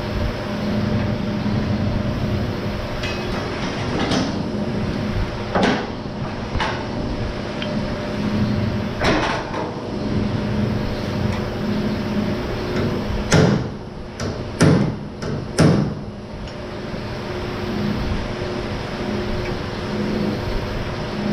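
A handful of sharp metal knocks and clanks from tools working the car's sheet-metal body, three loud ones close together near the middle, over a steady low machine hum.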